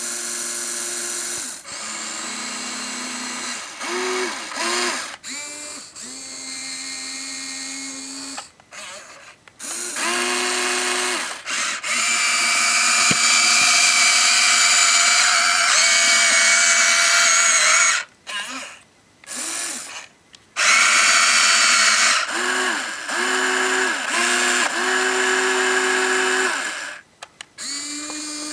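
Small electric motors and gearboxes of a Huina 1593 RC excavator whining in repeated starts and stops, the pitch rising and falling as each motor spins up and slows. The longest, loudest run is about 12 to 18 seconds in, with brief pauses between moves.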